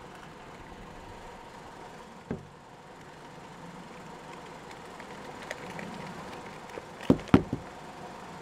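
A car idling with a steady low hum, heard from inside the car. A single thud comes about two seconds in, and three sharp knocks follow in quick succession near the end.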